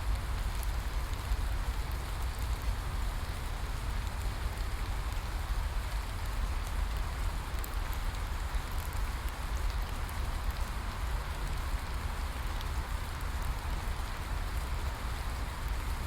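Steady rain falling in a rainforest: an even hiss of drops with fine pattering ticks and a low rumble underneath.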